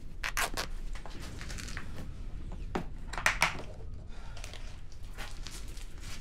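Rustling and crinkling as cloth and first-aid supplies are handled while a leg wound is dressed, in a run of short, sharp crackles, strongest about three seconds in.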